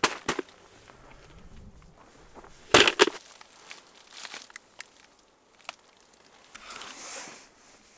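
Knocks and crunches from gear being handled in snow: a few sharp clicks at first, a loud double knock about three seconds in, scattered light ticks, and a crunching rustle near the end.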